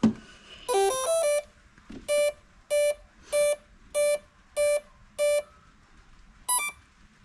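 A sharp click, then a brushless speed controller's power-up tones sounded through the Scorpion 4035 800 kV outrunner motor: a quick run of rising and falling notes, six even beeps a little over half a second apart, and a short final beep near the end as the controller arms.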